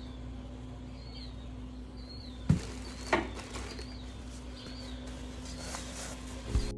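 Two sharp knocks about two-thirds of a second apart, around the middle, from fan parts being handled, over a steady low hum with faint, repeated high bird chirps.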